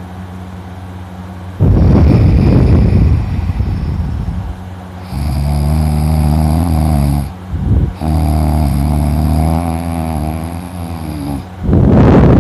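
Loud snoring from a sleeping man: two long pitched snores in the middle, with a short one between them. Before and after them come loud rushing breaths blown close onto the microphone, one about two seconds in and one near the end.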